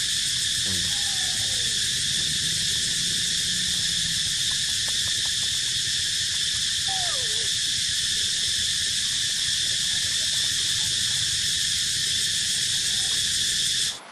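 Loud, steady chorus of insects in the forest, with two short falling calls from an animal, one near the start and one about halfway through. The chorus cuts off abruptly near the end.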